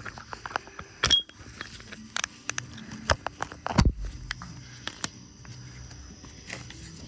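Socket wrench, extension and other metal hand tools clinking and clicking while bolts are worked under a car, with a quick run of clicks near the start and two heavier metal knocks, about one and four seconds in.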